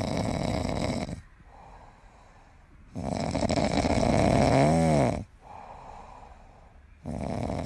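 An animal snoring: long, loud snores about four seconds apart, with quieter breaths between them. The middle snore is the loudest and wavers in pitch near its end.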